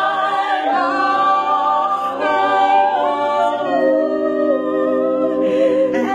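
Mixed men's and women's voices singing a cappella in close harmony, held chords that move together every second or so, with the last chord ending near the end.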